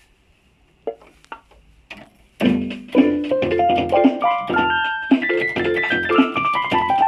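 Yamaha PSR-150 portable keyboard: a few short notes about a second in, then from about two and a half seconds a melody in a piano-like voice over the keyboard's built-in drum rhythm and bass accompaniment.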